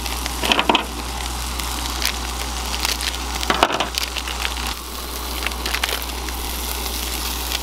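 Beef patty and bun frying in a cast iron skillet, a steady sizzle with crackles. The plastic wrapper of an individually wrapped cheese slice crinkles as it is peeled open, loudest about half a second in and again past the middle.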